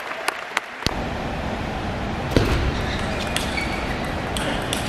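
Table tennis ball clicking: a few bounces in the first second, then the sharp strokes of a rally off the rackets and table, heard at a distance in a large hall over a steady background hiss.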